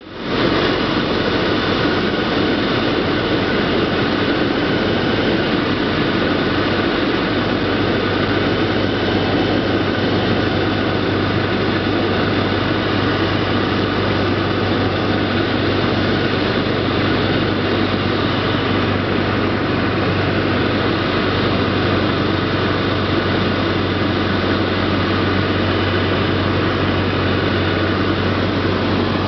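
Cessna 152's four-cylinder Lycoming engine and propeller running steadily in cruise, heard from inside the cockpit as a loud, even drone with a strong low hum.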